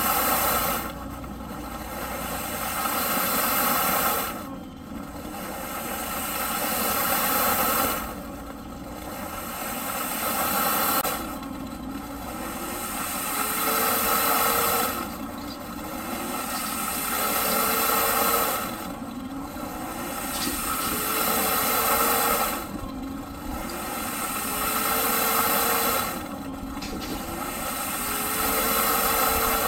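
Eureka PowerSpeed vacuum cleaner motor running loud, its sound cutting down sharply and then climbing back up in pitch, over and over about every three and a half to four seconds.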